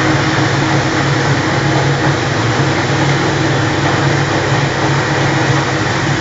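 Commercial wafer and chips fryer running: a steady, even noisy hiss with a low machine hum underneath.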